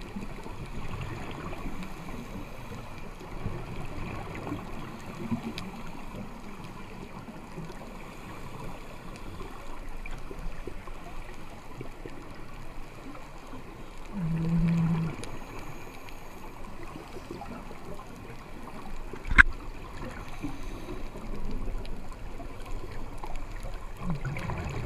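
Underwater ambience picked up by a camera in the sea: a steady watery hiss with faint scattered crackles, a brief low hum about fourteen seconds in, and one sharp click about nineteen seconds in.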